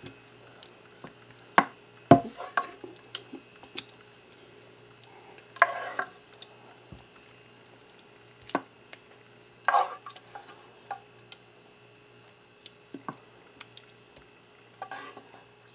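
Wooden spoon scooping and spreading ground-beef meat sauce in a glass baking dish: scattered knocks and clicks of the spoon with short wet scrapes of sauce, every second or few.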